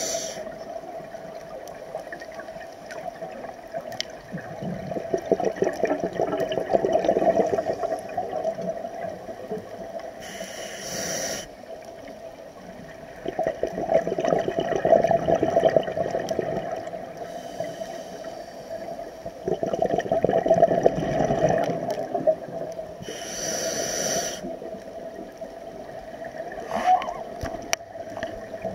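Scuba regulator breathing heard underwater: several seconds-long gurgling rushes of exhaled bubbles, broken twice by a short hiss of inhalation, about ten seconds in and again near the two-thirds mark.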